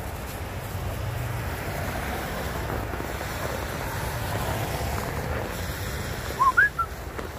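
Wind buffeting the microphone over a steady low rumble, with two or three short, high, rising squeaks about six seconds in.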